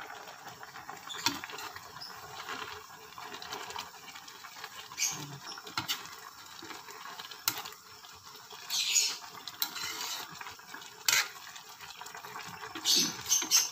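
Coconut milk simmering down in a metal wok with a steady bubbling hiss, broken by a few sharp scrapes and clinks of a spatula against the pan as malunggay (moringa) leaves are stirred in.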